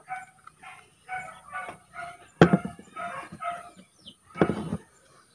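A dog barking over and over in short barks, about two a second, with a louder bark near the end. A sharp knock comes about halfway through.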